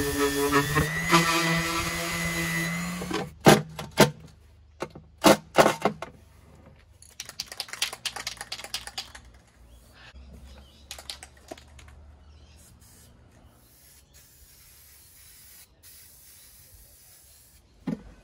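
A steady motor hum for about three seconds, then several sharp clicks and knocks, then quieter scattered handling sounds.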